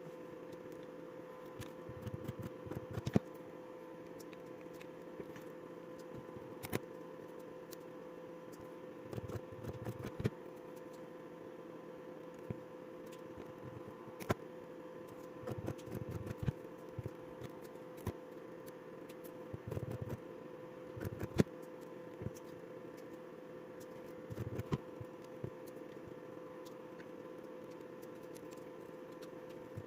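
Battery spot welder joining nickel strips to the lithium cells of a drill battery pack: groups of sharp clicks and snaps, a few at a time, every few seconds, over a steady hum.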